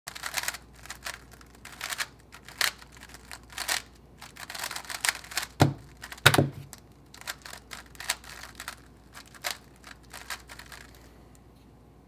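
Rapid clicking and clacking of a GAN356 X plastic speedcube being turned fast by hand during a speedsolve. Two heavier knocks come just before and at about the middle; the second one falls as the solve timer is stopped. Irregular clicks carry on as the cube is handled, then the sound dies away near the end.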